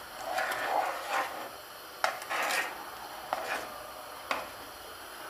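A ladle stirring and scraping around a nonstick pan of simmering broth, with three sharp taps of the ladle against the pan, as lumps of palm sugar are worked into the liquid to dissolve.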